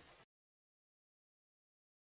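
Near silence: the faded tail of the music cuts off about a quarter second in, leaving dead digital silence.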